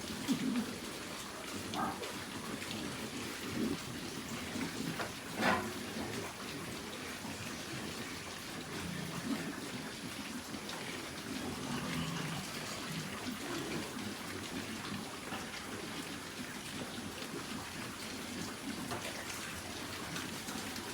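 Steady water noise with a few brief knocks.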